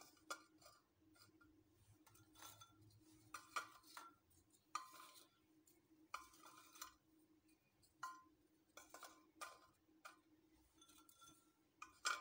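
Biscuits set down one by one in a glass baking dish: faint, light clicks and taps on the glass at irregular intervals, about one a second, over a low steady hum.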